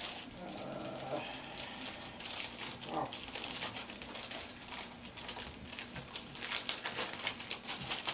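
Clear plastic wrapper crinkling and rustling in many small crackles as a replacement laptop keyboard is handled and unwrapped from it.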